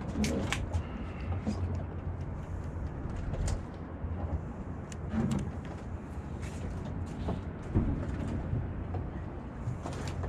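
Boat engine idling, a steady low hum, with scattered light clicks and knocks.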